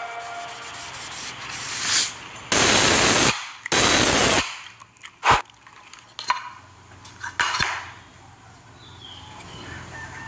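Two short hissing sprays, each under a second, about two and a half and four seconds in. They are followed by one sharp click and a few lighter clicks.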